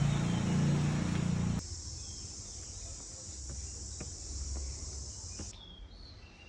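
A vehicle engine running steadily, then an abrupt cut about a second and a half in to a steady high-pitched insect drone, which stops sharply near the end and leaves faint bird chirps.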